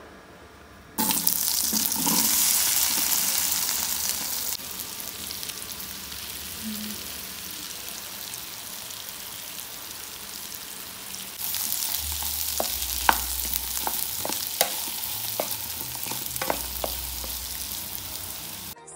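Seasoned diced potatoes frying in hot browned butter in a pan, a loud sizzle that starts suddenly about a second in as they go into the fat. The sizzle eases after a few seconds, then picks up again with several sharp knocks and scrapes of a wooden spatula as the potatoes are stirred.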